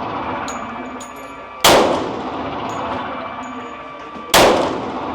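Two 10mm pistol shots about two and a half seconds apart, each very loud and followed by a ringing echo that dies away slowly.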